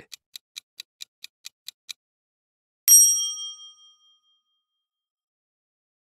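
Countdown timer sound effect: quiet, fast clock-like ticks, about four to five a second, for about two seconds. Then, about three seconds in, a single bright bell ding, the loudest sound, ringing out for about a second as the countdown ends and the answer is revealed.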